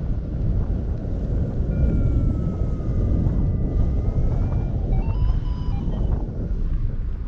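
Wind buffeting the microphone: a loud, steady low rumble, with faint thin tones drifting in the background.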